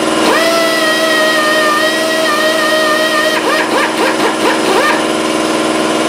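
Handheld pneumatic sanding tool spinning up with a quickly rising whine and running at steady speed for about three seconds, then triggered in several short bursts, over a steady low hum.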